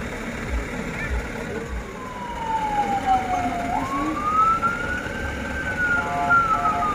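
An electronic siren tone gliding slowly down, then jumping up about halfway through and rising and falling again, with a second tone joining near the end; a low truck engine idles beneath it in the first seconds.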